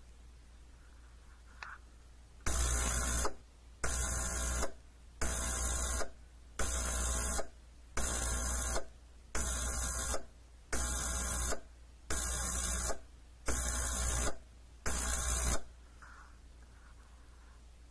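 GERCY 800 ml ultrasonic jewelry cleaner running in pulses, after a faint button click. It gives ten loud pulses of hiss and hum, each under a second, about one every 1.3 seconds.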